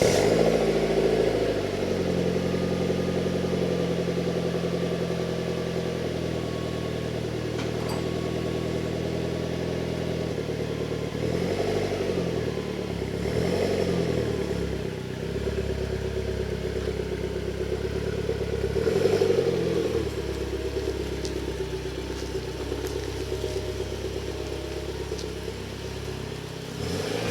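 Mitsubishi Lancer Evolution X's turbocharged four-cylinder engine running steadily, rising in a couple of light revs about halfway through and again around two-thirds of the way in.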